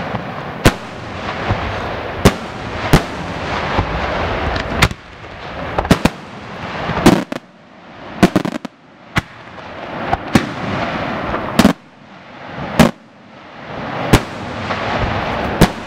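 Aerial firework shells bursting overhead: a sharp bang about once a second, with a continuous noisy rush of burning and falling stars between them.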